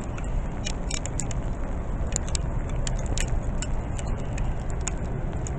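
Walking outdoors in a blizzard: a steady low rumble, most likely wind on the microphone, with scattered light clicks and ticks from handling and movement.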